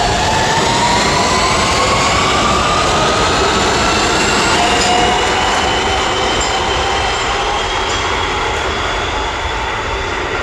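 R-160 New York City subway train accelerating out of the station, the whine of its AC traction motors rising steadily in pitch over the rumble of wheels on the rails.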